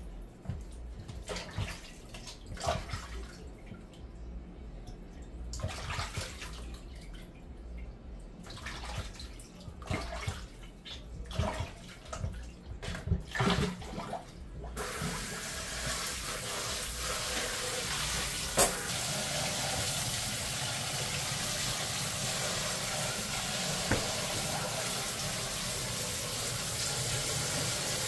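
Raw chicken being washed by hand in a plastic bowl of water in a stainless steel kitchen sink: irregular splashes and knocks. About halfway through, the tap is turned on and runs steadily into the sink, with a sharp click a few seconds later.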